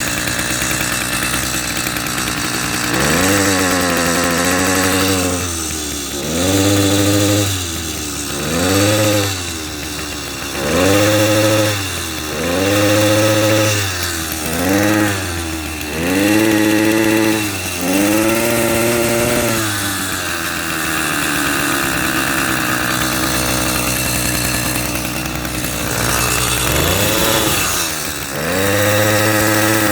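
80cc two-stroke motorized bicycle engine idling and being revved up and down repeatedly, about every two seconds. As it accelerates it makes an odd gargling, bubbling sound, the sign of a combustion problem that leaves it weak and low on torque.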